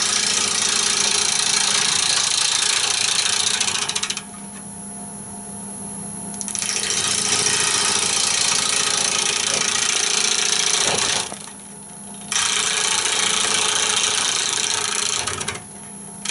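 Bowl gouge cutting into a spinning wooden bowl blank on a wood lathe: three cutting passes of several seconds each. Between the passes, only the lathe's steady motor hum is heard.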